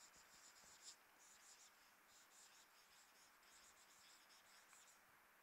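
Marker pen writing on a whiteboard: faint scratching in runs of quick short strokes, stopping near the end.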